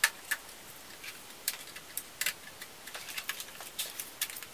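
Irregular light clicks and taps from hands handling the plastic parts of an opened ThinkPad T540p laptop. The sharpest click comes right at the start, and another about two seconds in.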